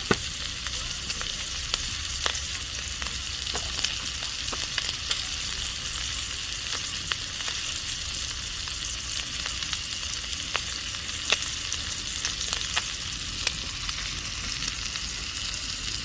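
Food frying in hot oil in a pan: a steady sizzling hiss with frequent small pops and crackles.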